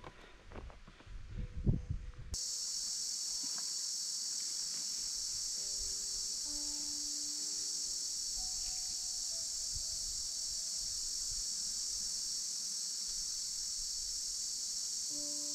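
Steady high-pitched drone of an insect chorus that comes in suddenly about two seconds in, after a brief low rumble of wind and handling noise. A few soft, sparse melodic notes of background music sound over it.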